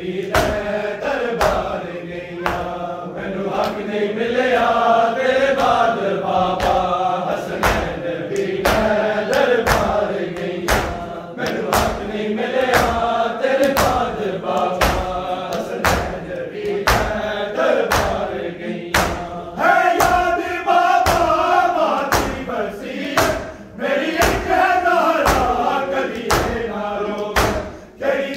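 Men's voices chanting a noha, a Punjabi-language Shia lament, in a group, over a steady beat of open-handed chest-beating (matam) struck in unison by the mourners.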